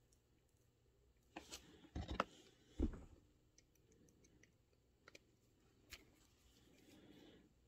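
Faint clicks and knocks of hands handling a small RC crawler chassis and a screwdriver, with a few louder knocks about two to three seconds in and a light rubbing near the end.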